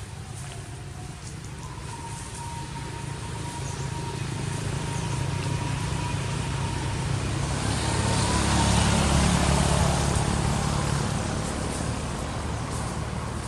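A motor vehicle passing by: a low engine hum that grows louder, peaks about nine seconds in, then fades away.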